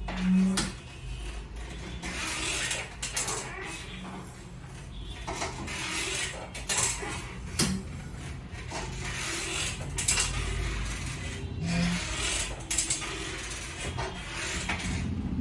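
Flexion-distraction decompression table being worked on a patient's lower back: irregular mechanical clicks and knocks from its moving section, with a short low hum near the start and again near the end.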